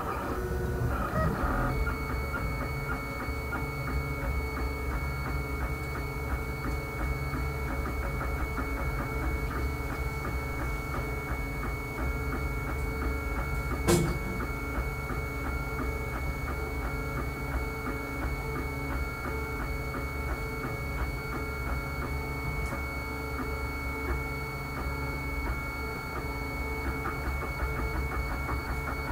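Homemade wooden-frame 3D printer running while printing, its stepper motors whining in many shifting tones over a steady high tone. A single sharp click about halfway through.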